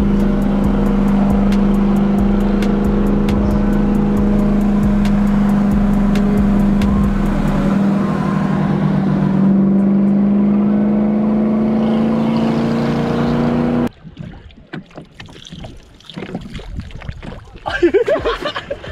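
A motor engine running steadily at one constant pitch, loud. It cuts off abruptly about fourteen seconds in, and quieter scattered knocks and noises follow.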